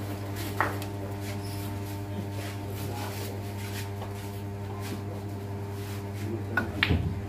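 Steady electrical hum, with a single sharp click a little over half a second in and a few knocks near the end.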